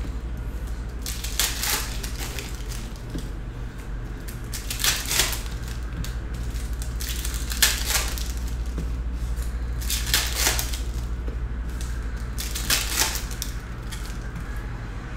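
Plastic trading-card pack wrappers being torn open and handled, crinkling in short bursts every two to three seconds, over a steady low hum.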